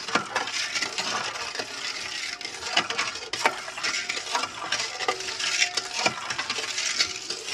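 A spoon stirring liquid in a stainless steel mixing bowl, scraping and clinking against the bowl's sides and bottom again and again as sugar is dissolved into warm water and milk.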